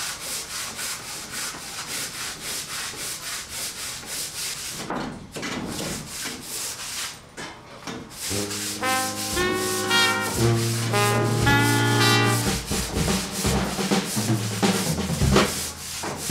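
Sanding pad on a pole rubbed back and forth over fairing-compound-filled wooden ceiling planks: a steady run of short, quick rasping strokes. Music comes in about halfway through.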